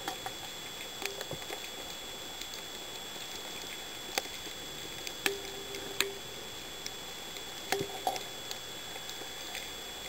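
Underwater sound picked up through a camera housing: a steady hiss with a faint high whine, scattered sharp clicks and crackles, the loudest about five, six and eight seconds in, and a short low hum about five seconds in.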